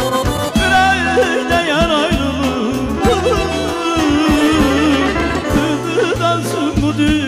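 Male voice singing a mugham passage, the melody bending and trilling in ornate melismas, over regular nağara drum beats and a steady low instrumental backing.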